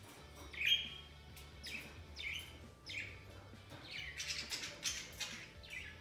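Budgerigars chirping: a string of short falling chirps about once a second, then a rapid, scratchy run of chatter about four seconds in.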